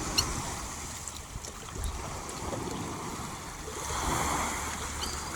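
Lake water lapping with wind on the microphone, swelling about four seconds in, with faint short high calls of black-winged stilts now and then.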